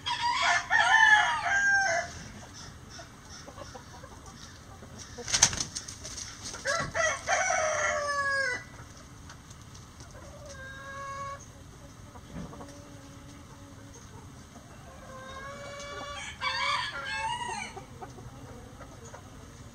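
Roosters crowing, several long crows one after another: a loud one at the start, another about a third of the way in, a fainter one around the middle and a loud one near the end, with short low chicken calls between them. A single sharp knock sounds about five seconds in.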